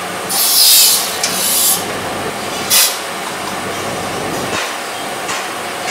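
Golf-shaft cutting saw machine working: a loud hiss lasting about a second and a half, then a second short hiss a little before three seconds, over steady factory machinery noise.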